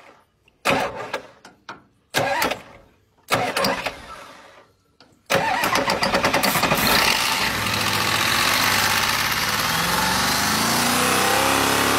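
Turbocharged pickup engine cranked in three short bursts, then catching about five seconds in and running loud and rough before settling, its pitch shifting near the end.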